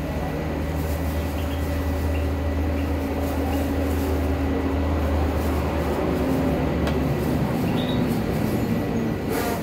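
Steady low mechanical rumble, like an engine running nearby, which fades out about seven seconds in, over a faint steady high whine. A sharp click sounds near the end.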